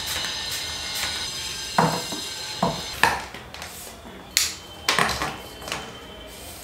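Camera tripod being worked on by hand: a series of sharp clanks and clicks as its centre column and leg joints are handled while the broken centre-column joint is refitted. The loudest knock comes about three seconds in.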